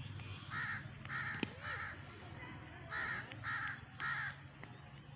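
A crow cawing: three harsh caws in quick succession, a pause of about a second, then three more. A single sharp knock comes about a second and a half in.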